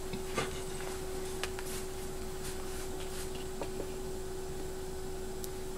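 Steady electrical hum with one constant tone, with a few faint clicks and rubbing noises.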